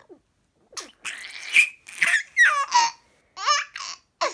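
Seven-month-old baby laughing in a few short, high-pitched bursts, with a breathy, noisy stretch about a second in.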